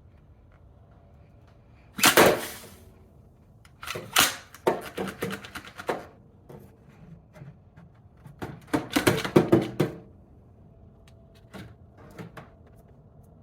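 Hard plastic clicking and clattering as parts of a Dyson V15 cordless stick vacuum are handled while its bin and filter are cleaned, in three short bursts about 2, 4 and 9 seconds in, with no motor running.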